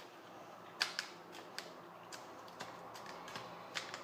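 A plastic fork clicking and scraping against a plastic salad bowl while salad is picked out: about a dozen sharp, irregular clicks over a few seconds, the loudest a little under a second in.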